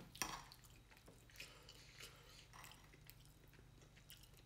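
Faint eating sounds: a fork clicking and scraping on a plate of chili and rice, the sharpest click just after the start, with quiet chewing between.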